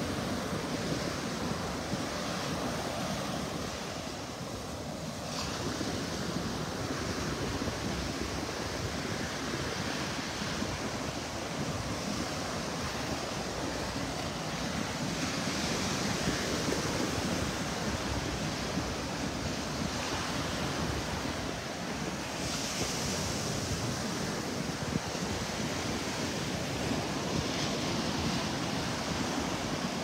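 Ocean surf breaking and washing up a sandy beach in a continuous rush, swelling each time a wave breaks.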